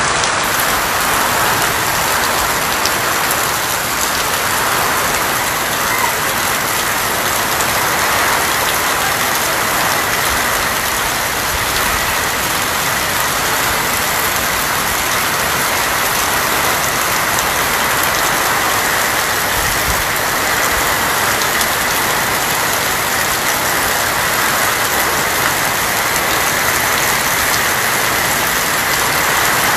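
Steady rain falling on a tin roof: a dense, even patter that holds level throughout with no pauses.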